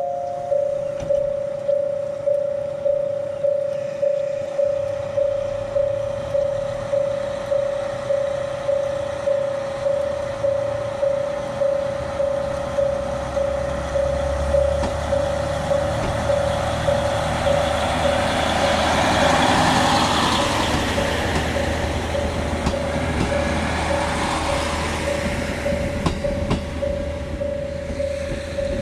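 A KiHa 40 diesel railcar pulls out of the station, its diesel engine and wheels on the rails building to their loudest about 19 to 20 seconds in, then fading as it moves off. Under it the whole time is a repeating electronic warning tone, pulsing about one and a half times a second.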